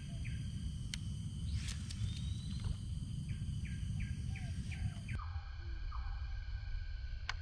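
Outdoor background: a steady low rumble with a high, steady insect drone over it and a run of short, repeated bird calls, broken by a couple of sharp clicks.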